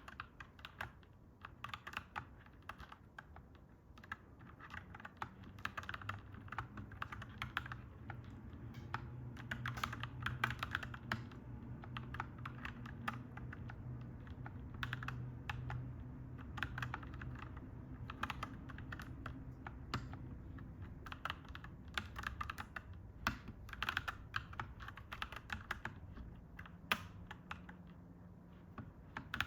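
Clacky mechanical keyboard being typed on in quick runs of keystrokes with short pauses. A low rumble swells underneath from about five seconds in and fades after about twenty seconds, like a train passing in the background.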